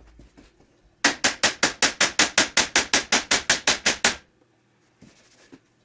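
Rapid, evenly spaced hammer taps on steel, about six a second, running for about three seconds. A short second run of taps comes at the very end.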